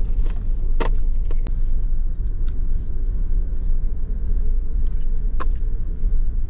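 Suzuki Jimny driving over a rough off-road trail: a steady low engine-and-road rumble with scattered knocks and rattles, the clearest a little under a second in and near the end.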